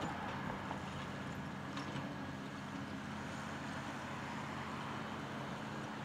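Diesel engine of a Caterpillar 330D L hydraulic excavator running steadily while it digs and swings dirt, with a few light clanks about one and two seconds in.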